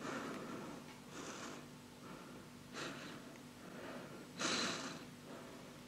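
Breathing in and out through a plastic snorkel tube: a series of airy breaths, the strongest about four and a half seconds in.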